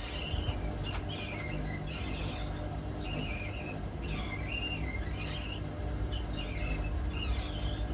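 Hotpoint WMA32 washing machine drum turning with a low running hum and a high, wavering squeak about once a second: the drum rubbing on the bearing seal because the bearings are worn out.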